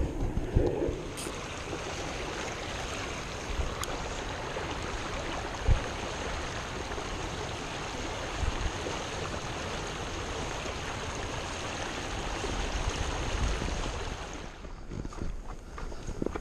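Creek water rushing steadily over a shallow riffle, with a few low thumps. The rush drops away about fifteen seconds in, leaving fainter scattered low knocks.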